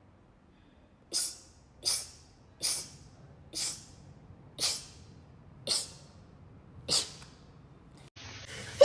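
A rapid run of seven short, hissing sneezes, about one a second.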